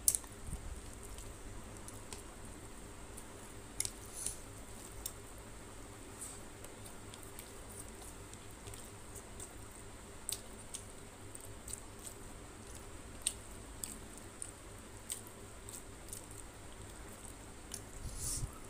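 Close-up eating sounds: fingers squishing and kneading rice mixed with tilapia fish curry, and chewing, with scattered short wet clicks and smacks.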